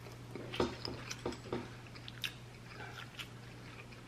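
Close-miked eating sounds: chewing with a scatter of short, wet mouth clicks and smacks.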